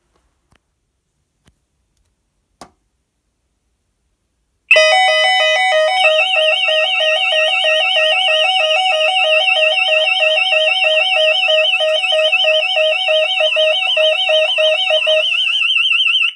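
Intruder alarm sounders on a Gardtec 800 system going into full alarm, starting sharply about five seconds in after a few faint clicks. A fast high warble runs over a lower two-tone that alternates about twice a second. The lower tone stops shortly before the end, and the warble cuts off suddenly.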